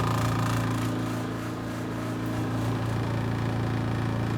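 Spin-dryer tub of a KUPPET compact twin-tub washing machine running, its motor giving a steady hum while it spins the wet clothes.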